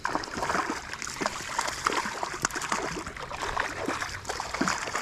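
A hooked brown trout splashing and thrashing at the surface during the fight, with irregular splashes over the rush of creek water.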